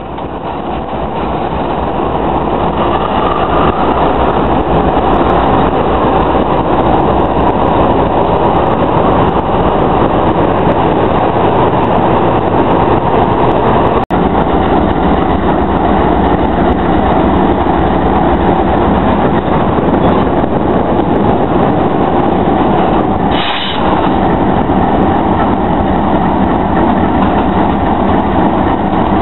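Diesel freight locomotives running at close range: a loud, steady, heavy engine drone. A brief high-pitched squeal comes about 23 seconds in.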